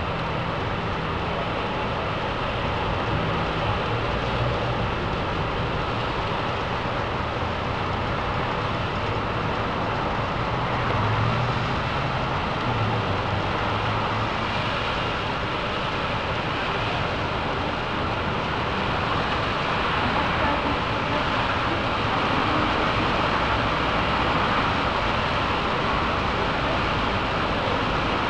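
Steady rush of a thunderstorm downpour over a city, mixed with the hiss and hum of traffic on wet streets.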